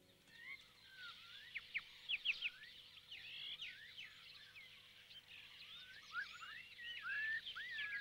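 Jungle ambience of many birds chirping and whistling, with quick overlapping calls that rise and fall. A few sharper chirps stand out about two seconds in.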